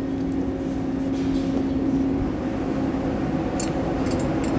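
Steady hum of background machinery with a held low tone. Near the end come a few light metallic clicks as the stainless header pipes are handled against the engine.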